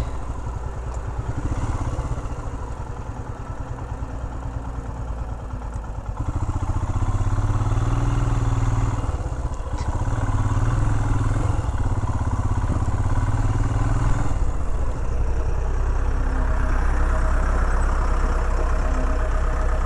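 Royal Enfield Himalayan single-cylinder motorcycle engine running over a rough dirt track, with clatter. About fourteen seconds in the engine note drops as the bike slows beside a John Deere backhoe, and a steady engine hum runs on to the end.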